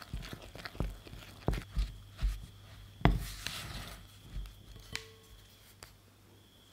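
Wooden spoon stirring shaggy bread dough in a glass bowl, with irregular knocks and scrapes of the spoon against the glass. The loudest knock comes about three seconds in.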